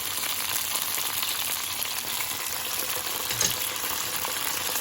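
Cooked beans frying in hot bacon lard with onion, a steady sizzle, with a single light click about three and a half seconds in.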